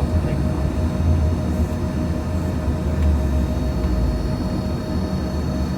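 Regional jet's engines running steadily: a constant low rumble with a steady tone above it, holding the same level throughout.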